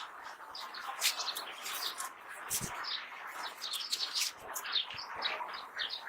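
Small birds chirping, with many short, quick calls in a row.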